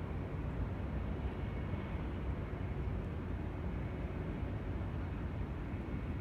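Steady low rumbling drone with a faint hum above it, unchanging in level. The recorder takes it for an unexplained sound coming from the sky.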